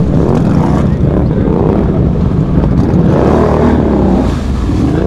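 Can-Am ATV's V-twin engine revving hard, its pitch rising and falling over and over, as the machine is held up on its rear wheels with the tyres churning through muddy water.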